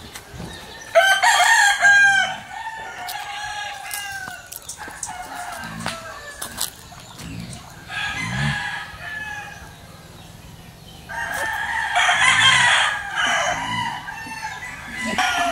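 Roosters crowing in a backyard flock, with chickens clucking between the crows. The loudest crows come about a second in and again about eleven seconds in.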